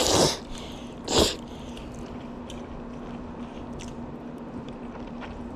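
Two short, loud slurps of jajangmyeon noodles about a second apart, followed by quieter chewing with small wet clicks.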